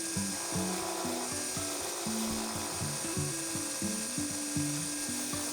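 Background music, a melody of short held notes stepping up and down, over a steady rasping sound of workshop tool work.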